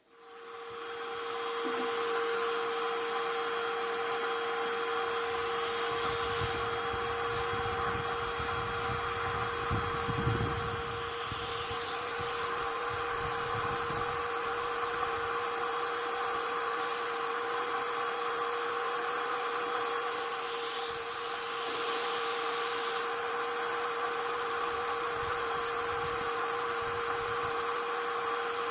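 Electric power tool motor spinning up to speed, then running with a steady high whine. Some lower rumbling comes and goes in the middle, as if the tool is working against material.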